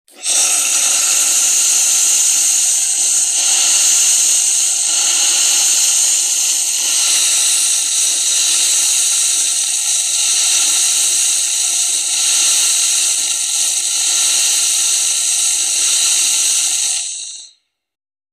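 Oster Prima Latte espresso machine blowing steam from its steam outlet: a loud, steady hiss that cuts off after about seventeen seconds. The steam shows the machine heating properly again after repair of its burnt control board.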